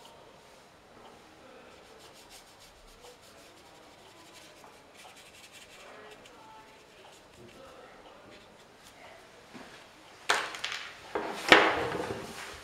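Faint scratchy rubbing of a paintbrush working paint onto paper, followed about ten seconds in by a few much louder rubbing and rustling sounds.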